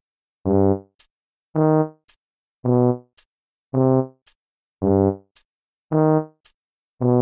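Music: short keyboard-like notes, evenly spaced about one a second, each followed by a short high tick.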